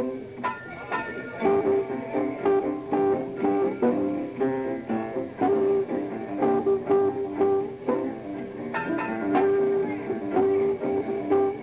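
Small jazz combo of guitar, double bass and piano playing, with the guitar to the fore in a quick run of plucked notes over a steady beat.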